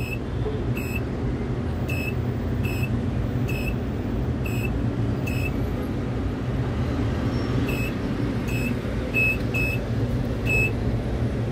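Tower crane running with a steady low mechanical hum while the hook hoists, and a short high warning beep sounding about once a second, pausing for a couple of seconds midway, then starting again.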